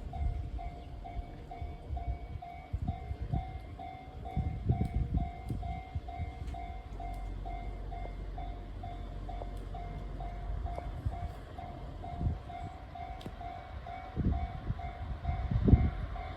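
Japanese level-crossing alarm ringing its repeated electronic bell about twice a second, over the low rumble of a JR 221 series electric train running over the crossing, which swells twice.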